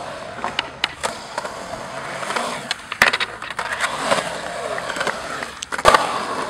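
Skateboard wheels rolling over rough concrete ramps, with sharp clacks of the board hitting the concrete: a hard one about halfway through and the loudest near the end.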